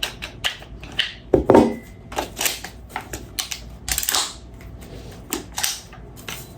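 Irregular series of sharp clicks and short scraping clacks from a VFC HK416A5 gas blowback airsoft rifle being handled and its parts worked by hand, about a dozen in all.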